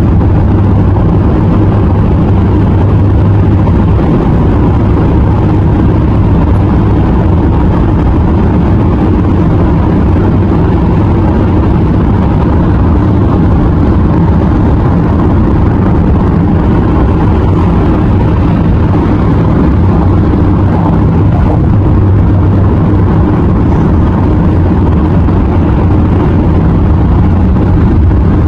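Steady low road and tyre rumble of a car cruising at highway speed. The noise holds level throughout, with no change in engine note.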